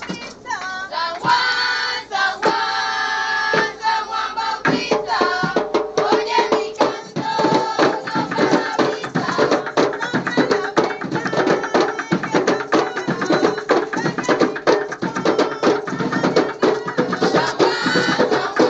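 A group of women's and girls' voices singing together over hand drumming and struck wooden sticks, a festive San Juan drum song. The percussion starts sparse and turns into fast, dense drumming about five seconds in.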